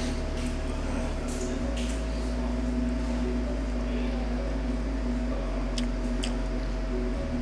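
A man chewing and eating a giant sauce-soaked BBQ pork sandwich, with wet squishing sounds and a few short sharp clicks, over a steady hum in the room.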